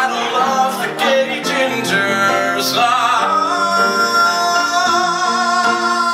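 A man singing a show tune over instrumental accompaniment, moving through a few notes and then holding one long, slightly wavering high note that breaks off at the end.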